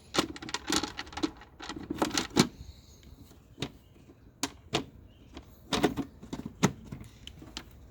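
Plastic airbox cover being fitted back over the air filter: a run of irregular clicks and knocks as the lid is handled and pressed into place.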